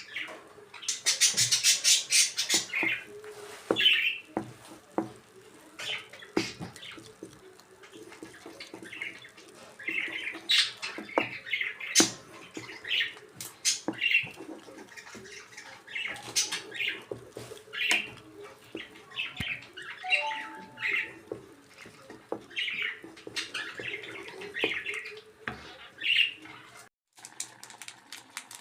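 Bird chirping and squawking in short repeated calls, with occasional sharp clicks.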